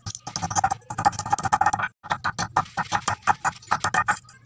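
Claw hammer tapping a metal bottle cap flat on a wooden plank: a fast run of light strikes, about six a second, with a short pause near two seconds in.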